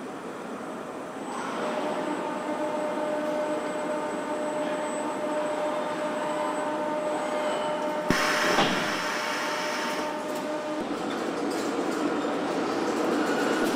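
Car assembly-line machinery running with a steady hum and a steady tone. About eight seconds in there is a sharp click and a short burst of hiss.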